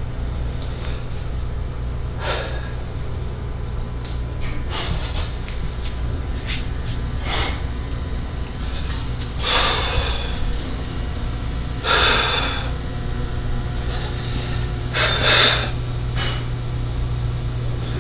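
A man breathing hard and sharply through nose and mouth while flexing through a posing routine, one forceful breath every two to three seconds, the loudest in the second half, over a steady low hum.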